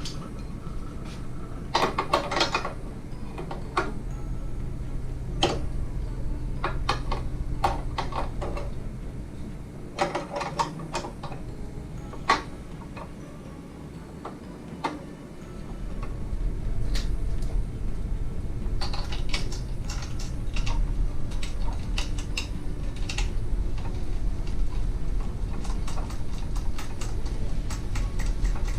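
Metal parts of a meat slicer clinking and clicking as they are handled and fitted, in scattered taps and short clusters. A steady low hum comes in about halfway through.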